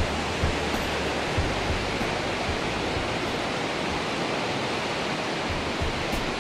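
Fast river of white water rushing through a narrow rock gorge, a steady, even hiss of flowing water. A few soft low thumps come in the first two seconds.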